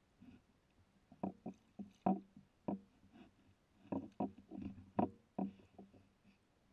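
Someone moving waist deep through a reed marsh: water sloshing and reed stems brushing, in a string of short, irregular knocks and splashes.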